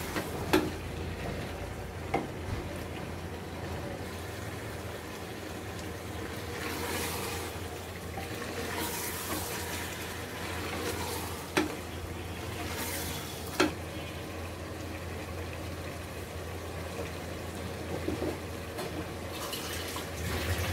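Chicken pieces frying in spice paste in an aluminium pot, stirred with a wooden spatula: a sizzle that swells and fades with the stirring, and a few sharp knocks of the spatula against the pot. This is the chicken being browned in the masala (kosha).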